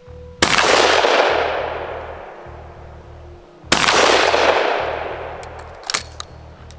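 Two shots from a 12-gauge over-under shotgun firing birdshot, about three seconds apart, each fading off in a long echo. Near the end come a few sharp metallic clicks as the gun is broken open and the spent shells are ejected.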